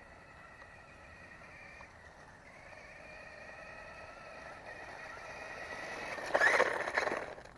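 Electric motor and gear whine of a Sharper Image Mountain Thrasher RC truck running at speed on a 3S LiPo battery. The whine grows louder as the truck comes closer, is loudest about six and a half seconds in, then falls away.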